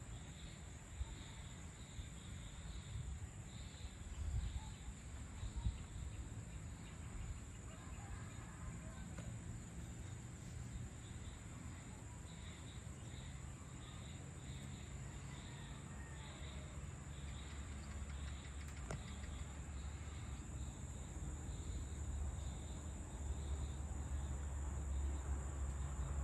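Evening insect chorus: a steady high-pitched trill with a chirp pulsing about twice a second over it, and a few faint bird calls. Underneath runs a low rumble that grows louder near the end.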